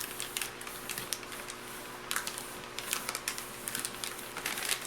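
Plastic and foil MRE packaging being handled: the heated entree pouch and its heater bag crinkle, with irregular light clicks and crackles.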